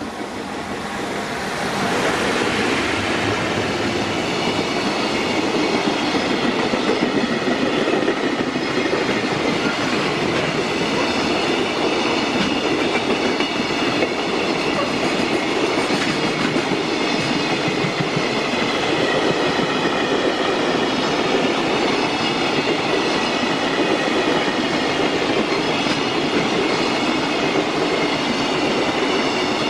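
JR Freight train passing close by: a loud, steady rumble and clatter of wheels on the rails that builds up over the first two seconds and then holds.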